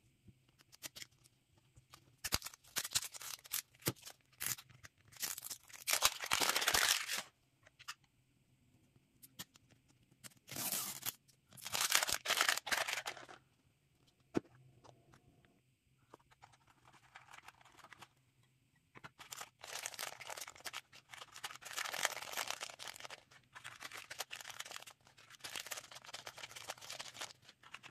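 Packaging of a blind-ball toy being torn and crinkled by hand: the printed wrapper peeled off the plastic capsule, then small plastic packets crinkled and torn open. It comes in several bursts of crackling with short pauses between.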